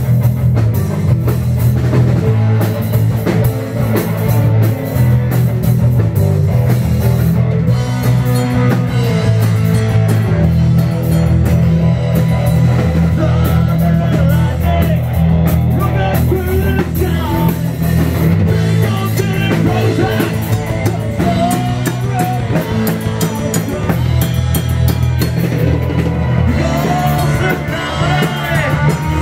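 Rock band playing live: a drum kit with cymbals, electric guitars, bass and keyboard playing together.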